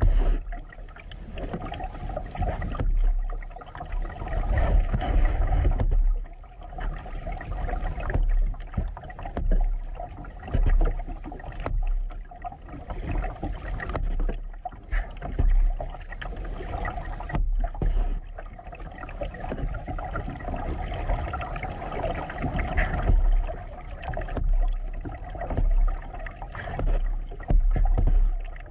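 Kayak paddle strokes in calm creek water, the splash and drip of the blades swelling and fading about every two seconds, over a low rumble.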